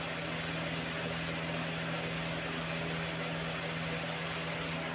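Steady background hum: a constant low tone with fainter tones above it and a light hiss, unchanging throughout.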